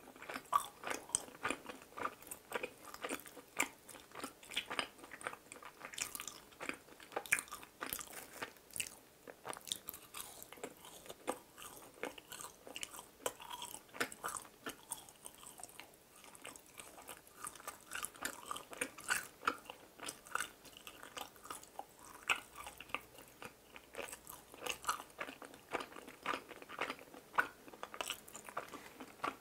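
Close-miked chewing of a piece of fried donut: a continuous run of small, irregular crunches and bites.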